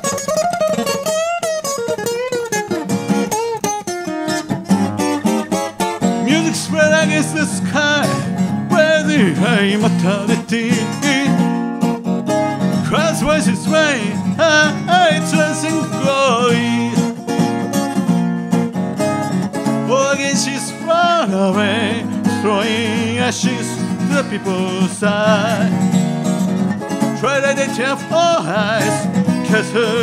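Acoustic guitar strummed under a man's sung vocal: a slow song played live on one guitar and one voice.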